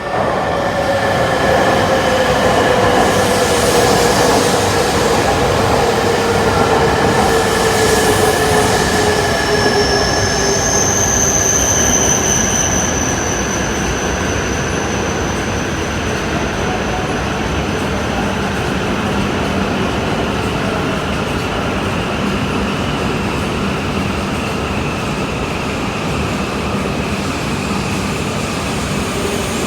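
A Shinkansen bullet train running along the platform, a whine falling slowly in pitch through the first ten seconds over a steady rumble of wheels on rail. A brief high-pitched squeal comes about ten seconds in.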